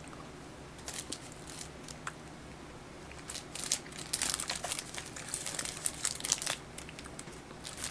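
Snack-cake packaging crinkling as it is handled: scattered crackles, sparse at first and busiest from about three seconds in until near the end.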